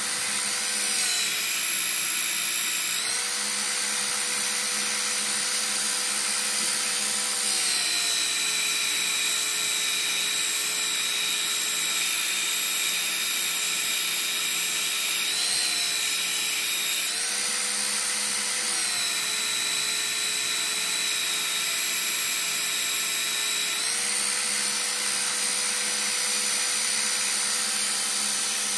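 Einhell TC-BS 8038 800 W belt sander running steadily, mounted as a bench grinder, with a steel knife blade ground against its belt. The motor whine sags in pitch for several seconds at a time and rises back several times as the blade is pressed on and lifted off.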